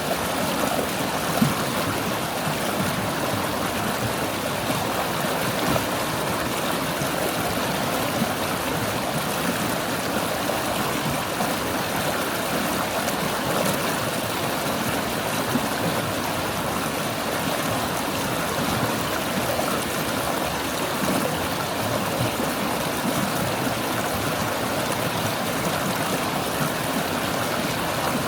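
A small forest stream babbling and gurgling as water flows over stones, in a steady, even wash with small splashy flickers.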